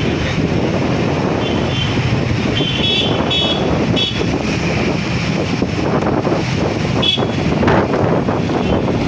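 Busy road traffic heard from a moving two-wheeler: a steady engine and road rumble with wind on the microphone, and several short horn toots from the vehicles around.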